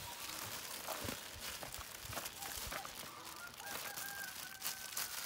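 Faint chicken calls, with one longer held call near the end, over light crinkling of a plastic package being handled.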